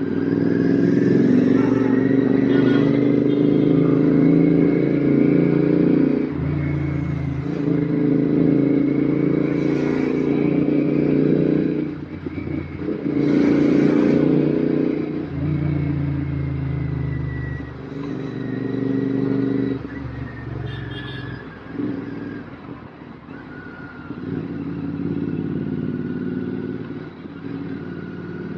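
Royal Enfield Continental GT 650 parallel-twin engine through an aftermarket RRP exhaust, riding with the throttle opening and closing. The note climbs, then drops back several times, most deeply about twelve seconds in and again a little after twenty seconds.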